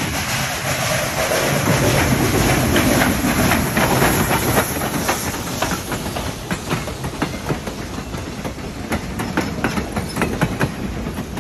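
Chesapeake & Ohio 1309, a 2-6-6-2 Mallet steam locomotive, passes close by, followed by its passenger coaches, whose wheels click over the rail joints in an uneven rhythm from about halfway through.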